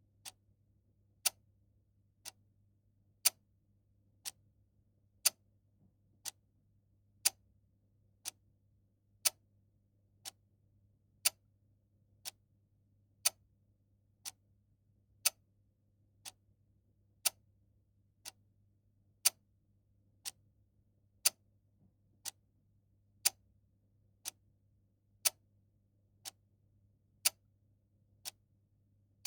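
Clock ticking steadily about once a second, the ticks alternating louder and softer in a tick-tock pattern, over a faint low hum.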